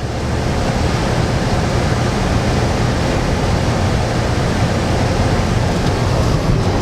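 Steady, loud rushing noise of a truck driving along a snow-drifted road, with low rumble and no distinct engine tone.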